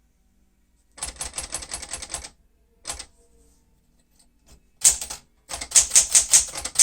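Type bars of a 1965 Sears Citation 12 manual typewriter, an elite-type Smith-Corona clone, striking the platen while text is typed. A quick run of keystrokes comes about a second in, then a lone strike, then another faster, louder run near the end.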